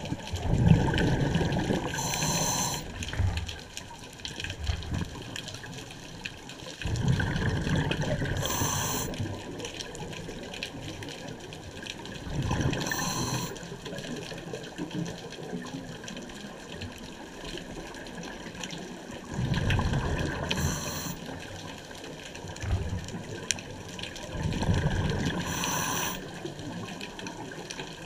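Scuba diver breathing through a regulator, heard underwater: five rumbling, bubbling exhales about every five or six seconds, each with a short hiss as the regulator valve opens.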